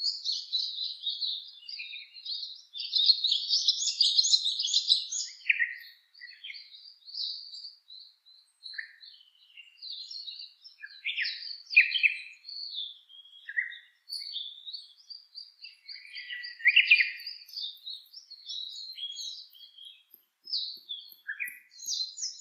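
Songbirds chirping and singing in quick, varied phrases and trills, densest and loudest in the first five seconds, then in scattered bursts.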